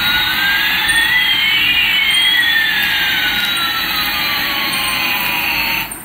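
Battery-powered toy Airbus A380's electronic jet-engine sound effect: a steady jet hiss with one whine rising in pitch and another falling, the two crossing about two seconds in. It cuts off just before the end.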